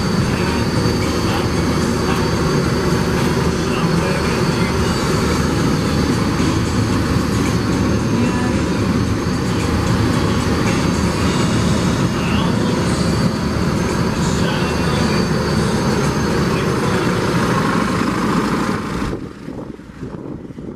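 Case IH 105C tractor running, heard from inside its cab as a loud, steady mechanical din. It drops off sharply near the end.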